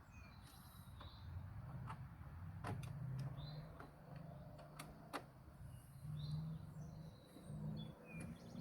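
Scattered sharp clicks and ticks of a screwdriver and plastic switch parts being handled at a steering column while the turn signal multi-switch screws are backed out, with faint bird chirps in the background.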